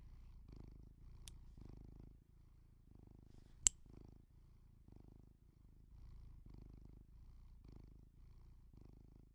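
Two sharp metallic clicks, a faint one about a second in and a much louder one a few seconds later, from the spring gate of a bag strap's metal ring clasp snapping, over a faint low pulsing rumble.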